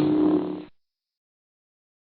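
The end of a short intro music sting, cutting off within the first second, followed by dead silence.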